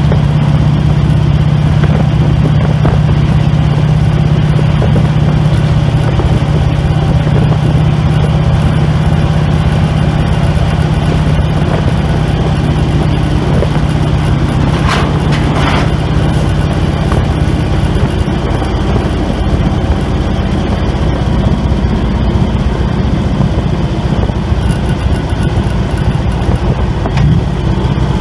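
Harley-Davidson Road King's V-twin engine running at road speed with wind and road noise; the steady low engine hum turns rougher and noisier about halfway through.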